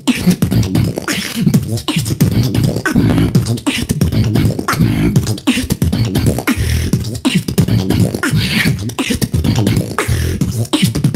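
Solo human beatboxing in a battle round: a fast, unbroken run of vocal kick and snare hits over a deep, wobbling vocal bass line, with sharp hissing hi-hat sounds on top.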